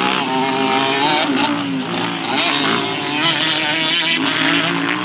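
Motocross dirt bikes' engines revving up and down as they ride the track, several engine notes overlapping and rising and falling in pitch.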